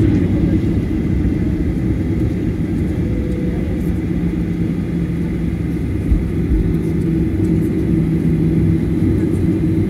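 Boeing 737 jet engines at taxi power, heard inside the cabin over the wing: a steady rumble with a low, even hum. One low thump about six seconds in.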